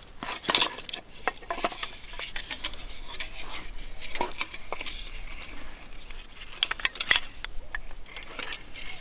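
Folding wooden bow saw being opened and set up by hand: irregular light wooden clicks and knocks, with cord and wood rubbing, heard close up.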